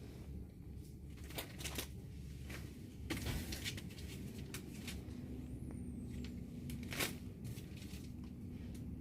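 Faint room noise with scattered light clicks and rustles.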